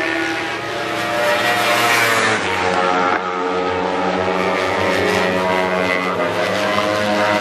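Sport motorcycle engines running at high revs on a race track, their pitch rising and falling as the bikes accelerate and slow for corners, with a sudden break a little over three seconds in.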